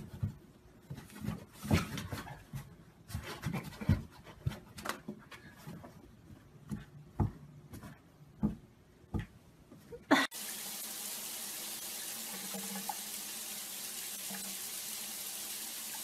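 Irregular light taps and knocks as a cat bats at a toy poking up through a cardboard sheet. About ten seconds in the sound cuts to a steady hiss of water running from a tap into a white basin where a grey cat stands.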